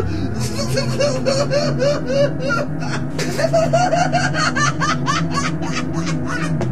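Repeated giggling and snickering: quick runs of short 'ha' bursts with breathy exhalations, starting and stopping several times.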